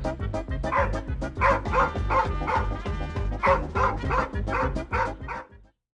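Background music with a steady bass beat and a dog barking repeatedly over it. Both cut off abruptly near the end.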